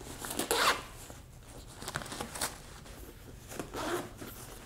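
Fabric rustling and brushing as a Dainese motorcycle jacket is smoothed flat and straightened by hand, in several short bursts with a few light clicks.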